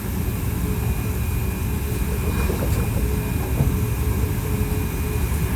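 Hankyu 1300-series electric train with Toyo IGBT-VVVF traction running at a steady pace: a continuous low rumble of wheels on rail, with faint steady tones above it.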